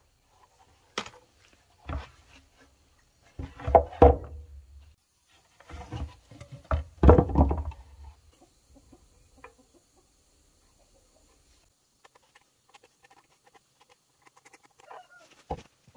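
Several dull knocks and thumps as a wooden plank is handled on the ground, loudest about four and seven seconds in, with a chicken clucking.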